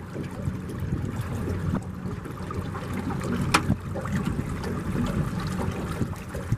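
Boat moving along a river: a steady low rumble with water washing past the hull, and one sharp click about halfway through.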